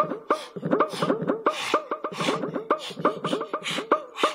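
Cartoon running sound effect: a fast string of short, squeaky pitched blips, several a second, mixed with quick swishes.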